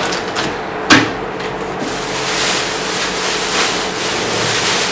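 Clear plastic bag and bubble wrap crinkling as they are handled and pulled off a boxed motor, with a sharp knock about a second in.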